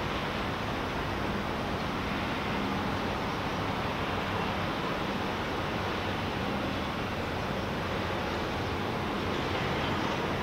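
Steady outdoor ambience of a ship repair yard: an even rushing noise with a faint low hum underneath.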